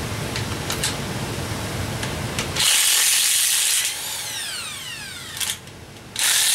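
A handheld power tool spinning a socket on the engine's bolts runs in a loud whirring burst of about a second, then its motor winds down with a falling whine. A few light clicks come before it, and a second short burst comes near the end.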